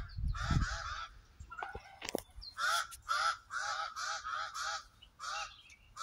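Crows cawing: short calls repeated in quick runs of two to five. A low rumble sounds near the start and a sharp click about two seconds in.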